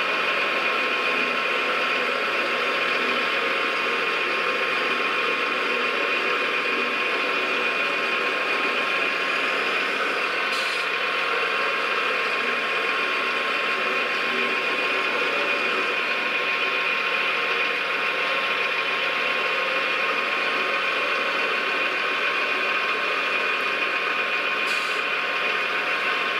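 Radio-controlled scale construction machines running: a steady engine-like drone carrying a constant high motor whine, with two faint clicks, one about ten seconds in and one near the end.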